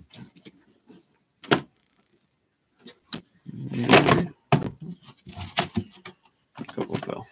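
Cellophane-wrapped trading card boxes knocking and sliding against each other and the table, with a louder clatter about four seconds in as several boxes topple off the stack. A run of knocks and rustling follows as the boxes are set back up.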